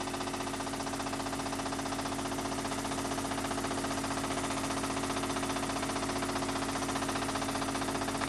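Pre-war Meccano oscillating-cylinder steam engine running steadily on compressed air: a fast, even beat of exhausting air over a steady hum.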